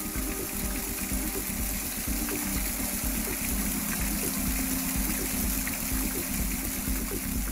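Small mountain waterfall, a thin stream of water falling steadily onto rocks and into a pool, with background music underneath.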